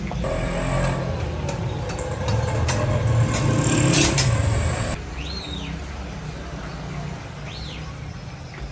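Eggs frying in hot fat in a large wok-like pan: steady sizzling with many sharp spatter pops, loudest about three to four seconds in. It cuts off abruptly about five seconds in, leaving a low rumble and two short chirps.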